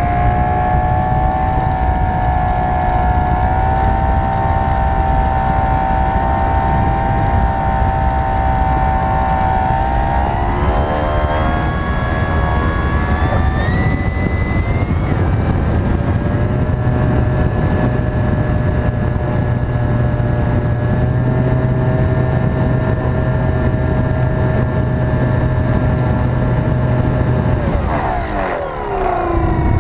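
Onboard sound of a radio-controlled model aeroplane in flight: a steady whine from its motor and propeller, with wind rushing over the airframe. The pitch steps up and shifts around the middle. Near the end the sound dips briefly and swoops down and back up in pitch.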